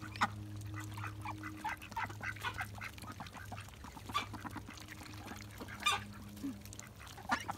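Ducks dabbling and drinking at shallow water pans: many quick irregular bill splashes and clicks mixed with soft quacks, over a steady low hum.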